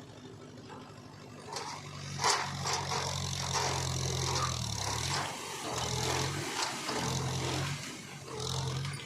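Heavy diesel machine engine running under load, its pitch sagging briefly about halfway through, with metallic knocks and scraping over it.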